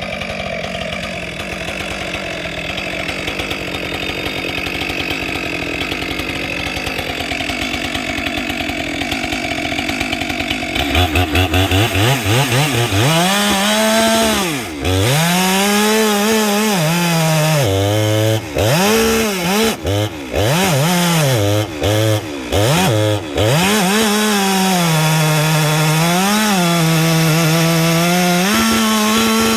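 Stihl 462 chainsaw's single-cylinder two-stroke engine cutting wood. From about eleven seconds in it runs at high revs and repeatedly pulls down in pitch and climbs back up as the chain bites and clears the cut. Before that comes a steadier, noisier sound with no clear engine note.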